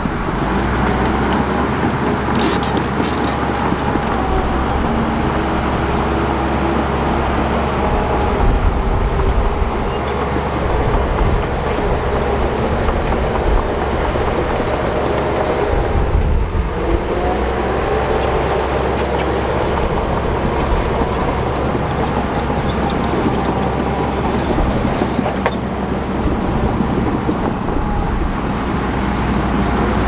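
Shantui crawler bulldozer's diesel engine running steadily as the dozer pushes dirt and rock.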